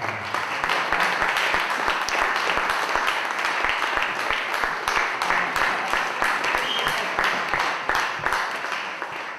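Audience applauding: a dense, steady patter of many hands clapping, easing off slightly near the end.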